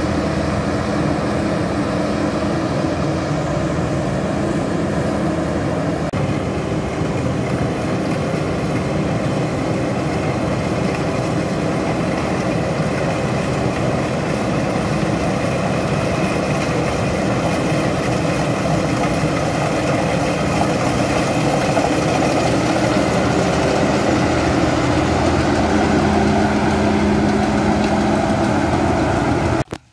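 Rice combine harvester running steadily while cutting and threshing rice: a continuous engine and machinery drone that cuts off abruptly near the end.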